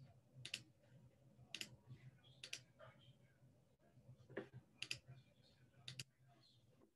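Faint computer clicks, about six of them at irregular intervals, one a quick double, as someone works a computer. A faint low hum sits underneath and stops near the end.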